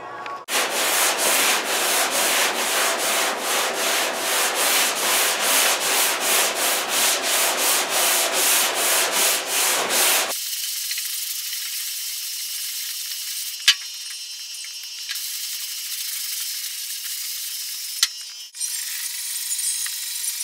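Hand sanding of the primed sheet-metal bedside of a 1963 Chevy pickup: brisk back-and-forth strokes, about three a second, for the first ten seconds. Then a quieter, steadier scratching with two sharp knocks.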